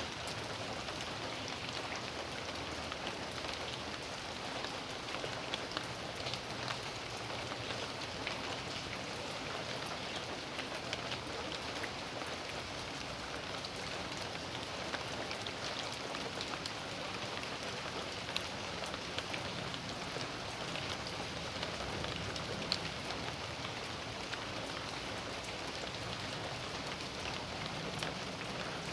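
Steady rain falling in a backyard, a constant hiss with many separate drops ticking sharply on surfaces.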